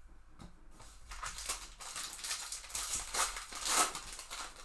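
Plastic trading-card pack wrapper crinkling and tearing as a pack is opened, a dense run of crackles that builds and is loudest near the end.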